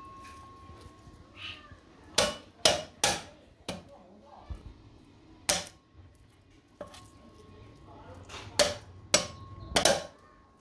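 A kitchen knife striking a round chopping board in about eight sharp, irregular knocks while garlic is being prepared.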